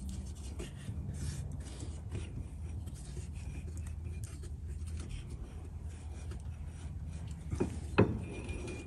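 Hand-turned ring and pinion gears in an open rear differential, making faint rubbing and scraping of metal while the tooth contact pattern is rolled on the unloaded side. A steady low hum runs underneath, and two sharp metallic clicks come near the end, the second the loudest.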